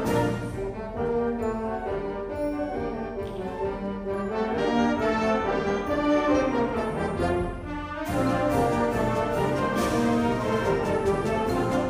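Junior high concert band playing, with the brass prominent in sustained chords. The sound dips briefly about eight seconds in, then the full band comes back in.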